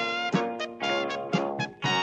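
Instrumental break in a band song with no singing: several pitched instruments play over a steady beat of about three strokes a second.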